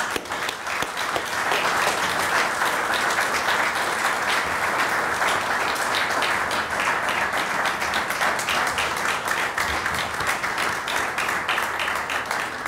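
Audience applauding: a steady wash of clapping that thins to scattered separate claps near the end.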